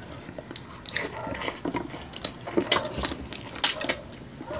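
Close-miked eating: two people chewing and biting on braised chicken feet adobo, with irregular sharp wet clicks and smacks.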